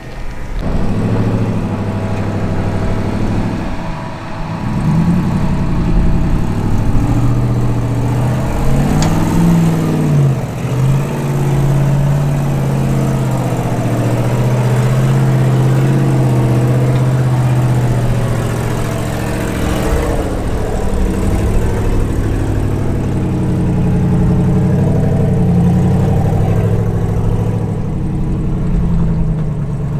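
Jeep Wrangler engine working under load while crawling over rock, its pitch rising and falling with the throttle and holding steady for several seconds in the middle.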